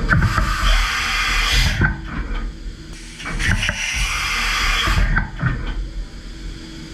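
DMG MORI M1 three-axis CNC mill cutting a steel part: two stretches of loud, hissing cutting noise about two seconds each, with the machine running quieter between and after them.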